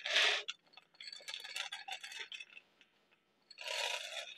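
Semi-sweet chocolate chips pouring from a ceramic bowl into a saucepan while a wooden spoon stirs. A short pouring rattle at the start, a scatter of light clicks and clinks, then another short pouring rattle near the end as the last chips are shaken out.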